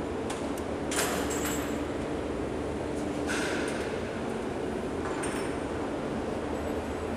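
Steady low drone of a ferry's enclosed vehicle deck, with sharp metallic clanks and clinks three times as deck crew strap the motorcycles down.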